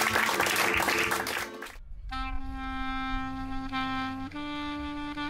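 Audience applauding, which cuts off abruptly a little under two seconds in. Background music follows: a single instrument playing a slow melody of long held notes.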